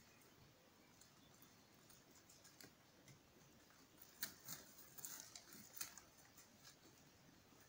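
Near silence with faint scattered crackles and clicks of sheep browsing among cut leafy branches: twigs and dry leaves snapping and rustling under their mouths and hooves, busiest a little after four seconds in. There is no bleating.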